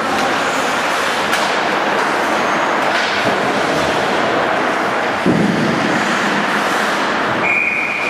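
Indoor ice hockey rink during play: a steady wash of noise from skates on the ice and the arena, with a few sharp clacks of sticks and pucks and a heavier knock a little past halfway. A steady high tone starts near the end.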